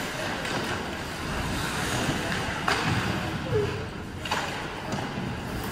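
Ice hockey rink ambience during play: a steady wash of noise with faint voices, and two sharp knocks about a second and a half apart near the middle.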